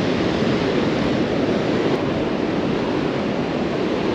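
Ocean surf on a sandy beach: a steady, even rush of breaking waves.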